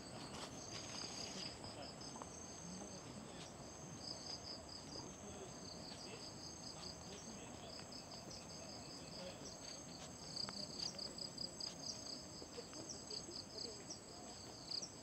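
Crickets and other insects calling in tropical jungle: a rapid, pulsing trill with steady high-pitched buzzing above it. The trill grows louder about ten seconds in.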